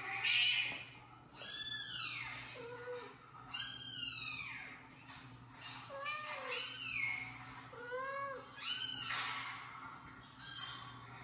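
Kittens meowing over and over, about eight high-pitched arching meows, some lower and shorter than others, spaced a second or two apart. These are the meows of a kittens-meowing video playing on a phone.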